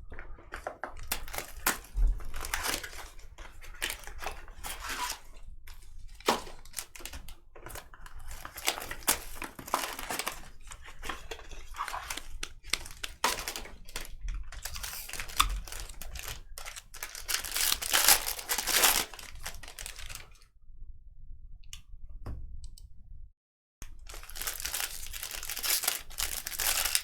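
Plastic wrapping crinkling and tearing as sealed trading-card boxes are unwrapped and opened, with irregular rustles and small clicks; the handling stops for a couple of seconds about three-quarters of the way through, then the crinkling starts again.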